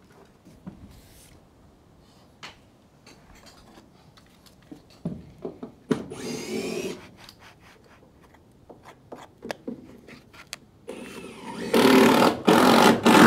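Cordless drill running in short bursts: briefly about six seconds in, then louder and longer near the end, with scattered clicks and knocks of handling in between.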